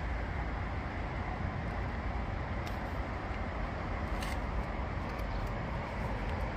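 Steady low outdoor background rumble with a few faint, sharp clicks; no speech.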